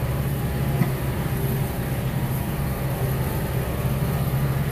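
Kubota M6040 tractor's four-cylinder diesel engine running steadily while pulling a V hay rake.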